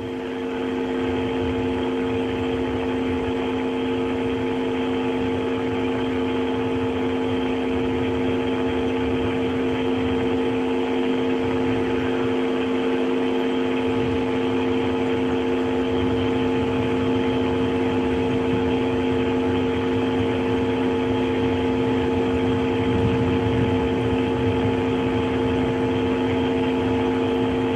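Steady mechanical hum from launch pad equipment around the fuelled Soyuz-FG rocket. Several held tones sit over a hiss and a low rumble, and the sound fades up over the first second.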